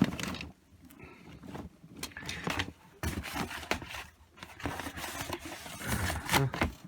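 Items being handled and shifted about while unpacking: irregular rustling and scraping with sharp clicks and knocks, loudest at the very start and again shortly before the end.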